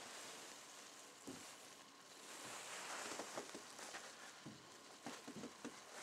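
Faint footsteps crunching on snow, soft irregular ticks and crunches over a steady hiss, from about two seconds in.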